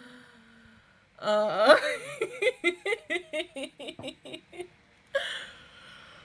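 A woman laughing: a quick run of short "ha-ha" sounds starting about a second in and fading out, followed by a breathy exhale near the end.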